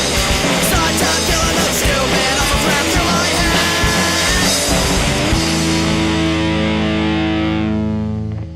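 Three-piece punk rock band (electric bass, electric guitar, drums) playing loud and fast. About five seconds in the drums stop and a held chord rings on, starting to fade near the end.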